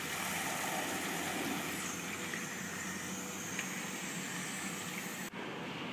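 Steady running noise of a reflux classifier test rig: a low hum under a broad rush of flowing water. The high hiss drops away near the end.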